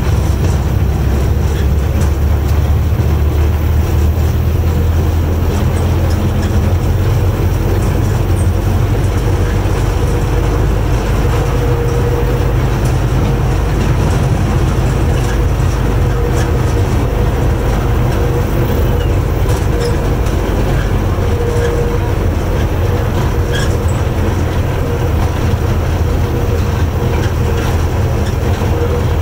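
Open-sided rail car riding along old railway track: a steady low rumble with wheels rattling over the rails, and a faint squeal that comes and goes.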